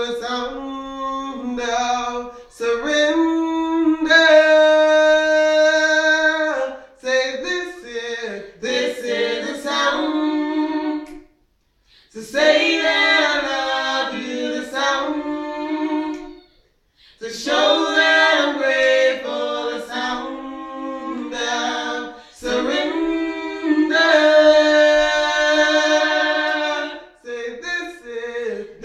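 A small vocal group singing a worship song a cappella, in long sustained phrases with held notes, broken by two brief pauses between phrases.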